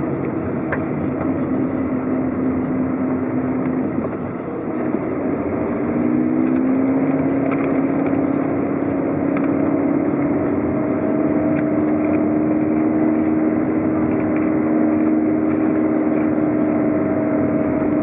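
Car engine and road noise while driving. The engine note dips briefly about four seconds in, then rises a little and holds steady as the car picks up speed.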